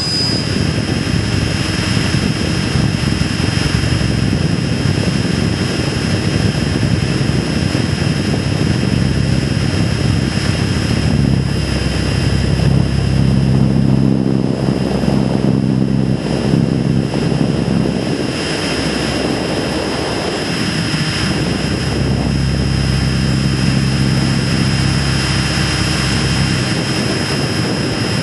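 Radio-controlled model aircraft's motor running steadily, heard up close from an onboard camera, with a steady high whine over the engine noise and rushing air.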